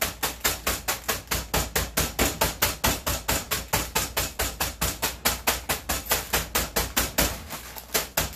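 A fist pounding a bag of pork rinds in a fast, steady rhythm, about five blows a second, crushing the rinds into crumbs; the blows grow weaker near the end.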